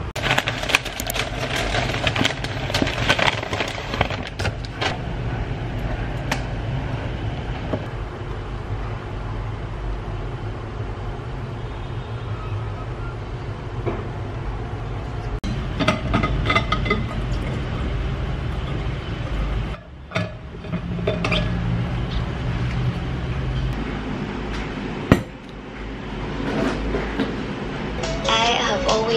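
Steady low rumble of room noise, with scattered clinks and taps of dishes and utensils; the sound changes abruptly a few times.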